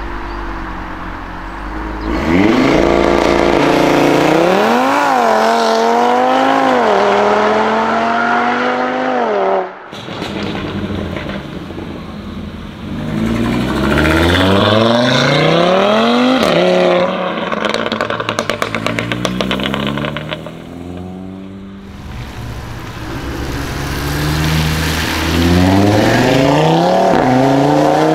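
Audi RS3s accelerating hard one after another, their turbocharged 2.5-litre five-cylinder engines rising in pitch, dropping briefly at each upshift and climbing again. In the middle there is a burst of rapid exhaust crackling.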